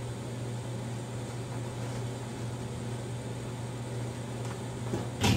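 A steady low mechanical hum over a faint hiss, with a short louder sound just before the end.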